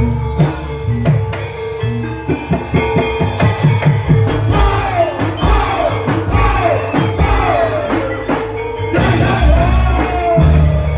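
Live gamelan music with quick drum strokes and struck metal instruments, and a melody line sliding in pitch over them from about four seconds in.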